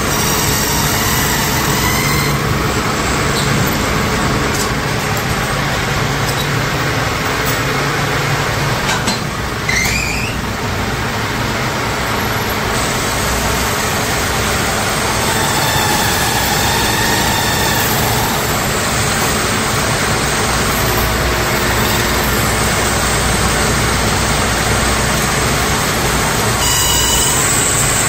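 Metal lathe machinery running steadily in a workshop while turning and cutting steel motorcycle engine valves, with a brief rising squeal about ten seconds in.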